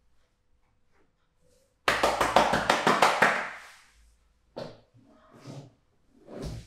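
A quick, loud run of about eight sharp hand slaps, roughly six a second, lasting about a second and a half: percussive massage strokes with the hands. A few softer taps and rustles follow.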